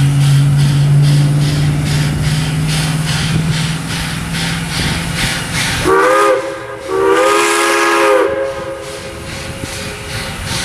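Steam locomotive working with steady rhythmic exhaust chuffs, then sounding its chime steam whistle about six seconds in: a short blast followed by a longer one, several tones at once.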